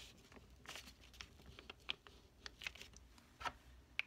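Glue stick rubbed over a folded paper square on a table: faint, scattered short scrapes and light taps as the paper is handled.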